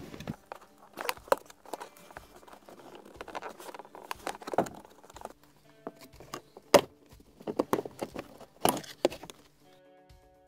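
Plastic footwell trim panel in a car's cabin being worked loose by hand: a run of irregular plastic clicks and knocks, loudest about seven seconds in.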